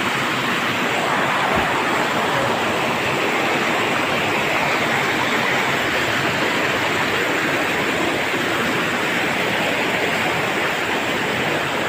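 Rocky mountain stream rushing and splashing over stones in small cascades, a steady loud rush of water.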